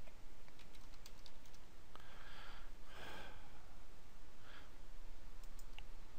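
A few faint computer keyboard keystrokes and then a single mouse click near the end, over a steady microphone hiss. A couple of soft breaths fall in the middle.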